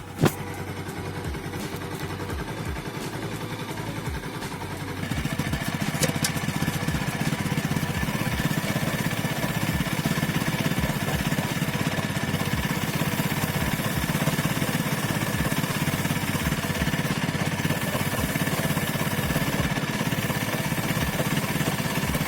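Bajaj Pulsar NS200's single-cylinder engine running steadily, stepping up louder about five seconds in.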